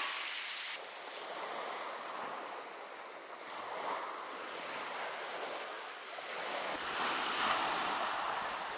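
Sea waves washing onto the shore, the surf swelling and easing every few seconds, with some wind on the microphone.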